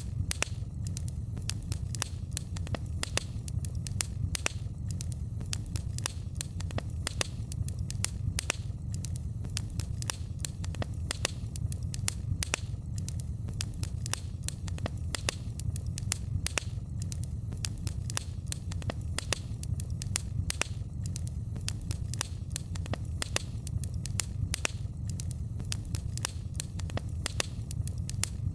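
Wood fire crackling: many sharp pops and snaps, several a second, over a steady low rumble of the flames.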